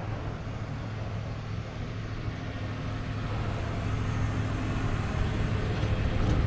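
A motor vehicle running close by: a steady low engine and road hum that grows gradually louder.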